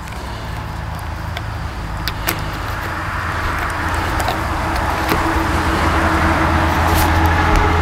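A motor vehicle's engine hum that grows gradually louder, with a few faint clicks from a plastic pipe fitting being handled.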